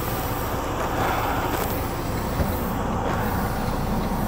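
Semi-truck diesel engine running steadily, heard from inside the cab.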